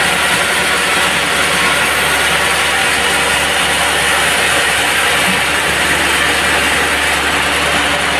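Band sawmill running steadily, its blade cutting through a log, a continuous dense hiss over the hum of the mill's motor.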